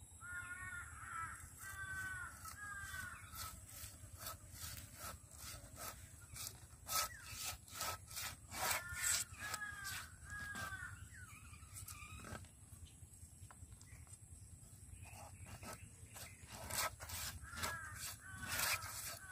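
Crows cawing in three runs of three or four caws each, over scattered sharp clicks and knocks from a hilsa fish being cut by hand.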